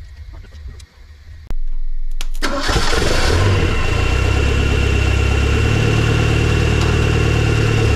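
Ford 2.3-litre turbocharged four-cylinder engine cranking briefly and catching about two and a half seconds in, then running at a steady idle with a thin high whine over it.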